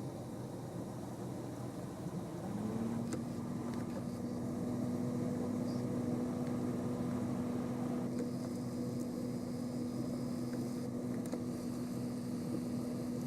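A steady mechanical hum like a running engine comes in with a short upward slide about two and a half seconds in, then holds one pitch over a low rumble.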